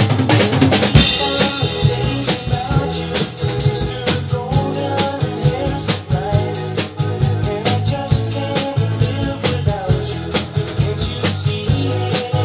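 Pearl drum kit played to a steady beat, bass drum, snare and cymbals at about four strokes a second, along with a recorded song carrying bass and guitar. A cymbal crash rings about a second in.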